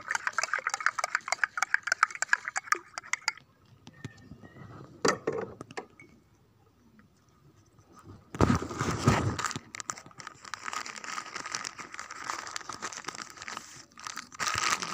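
Handling noises: a quick run of clicks and rattles, a single knock, then a sudden loud clatter about halfway through that turns into several seconds of crinkling and crackling.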